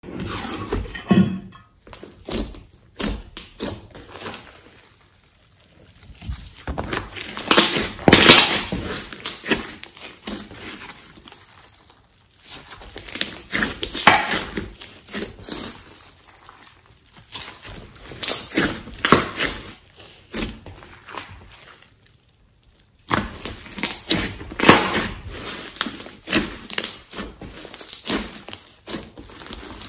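Hands kneading, squeezing and pressing a large mass of clay-mixed slime, making sticky squelches and irregular runs of small crackling clicks that come in repeated swells.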